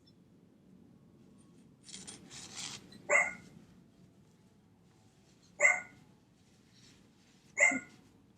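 A dog barking three single sharp barks, spaced about two seconds apart, with a brief rustle just before the first.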